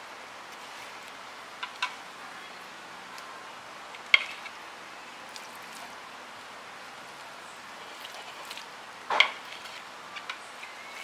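A metal fork clinking sharply against a ceramic plate a few times while the skin is peeled off a cooked beef tongue, the loudest clinks about 4 and 9 seconds in, over a steady faint hiss.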